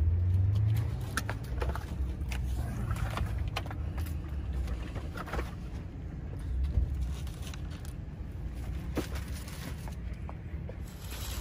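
Light knocks and rustles as grocery boxes are moved from a shopping cart and set down in an SUV's cargo area, over a steady low rumble.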